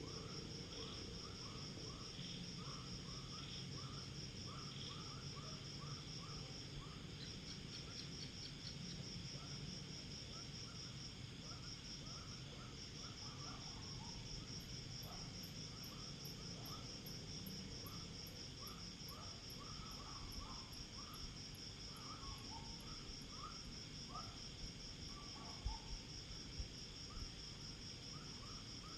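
Night insect chorus: crickets keep up a steady, fast, high trill while many shorter, lower chirps come irregularly over it. A few soft knocks sound near the end.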